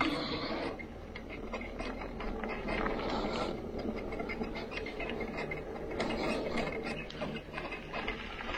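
Bicycle rear hub freewheeling with a fast, continuous ratcheting click as the rider coasts, over rough rolling noise from the trail.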